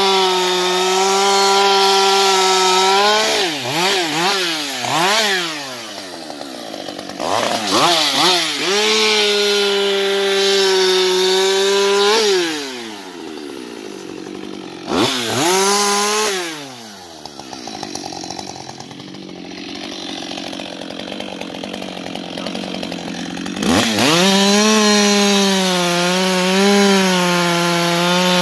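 Husqvarna 560XP two-stroke chainsaw cutting through a log at full throttle, its pitch held steady while in the cut. Between cuts it is revved up and down in short blips. Past the middle it drops to a low idle for several seconds, then throttles back up and cuts again near the end.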